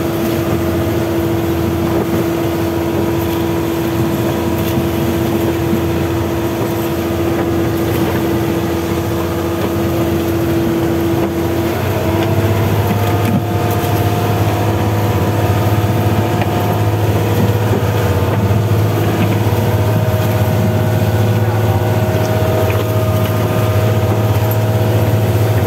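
Fishing boat's engine running steadily under way, its tones shifting and a low hum growing louder about halfway through, over wind and water noise.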